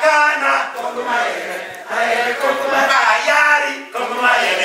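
A man chanting in about three long sung phrases, with short breaks between them.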